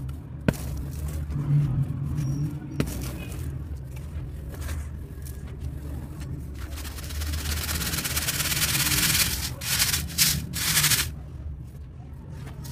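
Soft, dusty cement chunks being snapped and crumbled, sped up to double speed. There are two sharp snaps in the first three seconds, then a long stretch of crumbling from about seven to eleven seconds that breaks into separate bursts, over a steady low hum.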